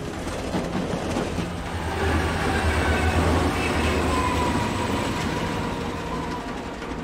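Electric commuter train rushing past, its rumble and rail noise swelling to a peak a few seconds in and then easing off, with a faint wheel squeal falling in pitch around the middle.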